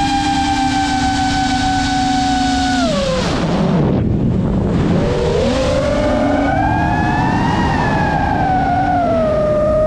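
GEPRC Mark 5 FPV quadcopter's motors whining steadily. About three seconds in, the pitch drops sharply as the throttle is cut and turns into a rushing noise. The whine then comes back, rising and wavering as the throttle is worked.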